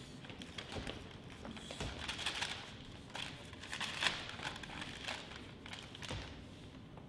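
Sheets of paper rustling and crinkling in several hands, faint and irregular.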